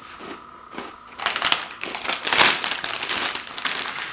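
Thin clear plastic cookie bag crinkling as a plastic tray of sandwich cookies is slid back into it, starting about a second in and loudest near the middle.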